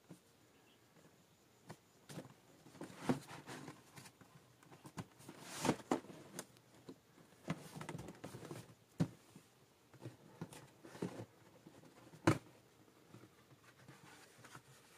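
Hands handling a cardboard shoebox: irregular rustling, scraping and taps as the box is turned over and its lid opened, with one sharp knock about twelve seconds in.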